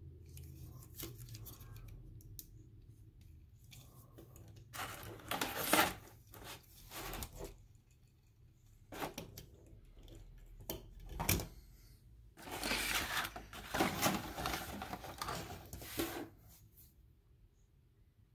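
Clear plastic packaging crinkling and rustling as it is handled, in several bursts with short clicks and knocks between, the longest lasting a few seconds.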